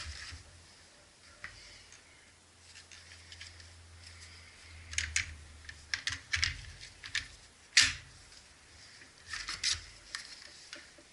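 Parts being handled and fitted together during the assembly of a cordless chainsaw: scattered sharp clicks and short clatters with faint rustling in between. The loudest click comes nearly eight seconds in.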